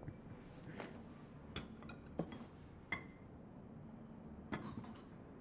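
Faint, scattered clinks of glassware and dishes, about five short taps, one of them briefly ringing.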